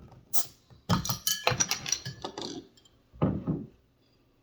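Glass bottles and small cups clinking and clattering as soda is handled and poured. A short hiss comes about half a second in.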